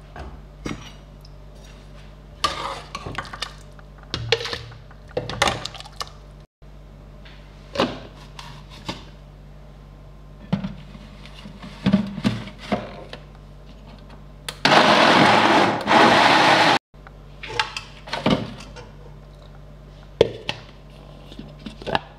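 Knocks and clinks of utensils against a pot and a plastic blender jar as boiled oranges, lemon and carrots are put in, then a Moulinex Masterchef 8000 food processor's blender runs for about two seconds, near the end, puréeing them into a thick juice.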